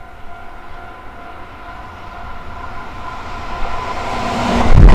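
Keihan 3000 series electric train approaching and passing close by, a steady whine growing louder, then the rumble of the wheels and cars swelling sharply near the end as it goes by.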